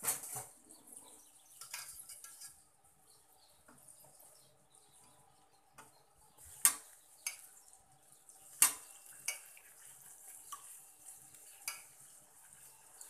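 A metal ladle stirring tamarind pulp into the oil tempering in a cooking pan, clinking and scraping against the pan. The clinks come at uneven intervals; the two sharpest are about 7 and 9 seconds in.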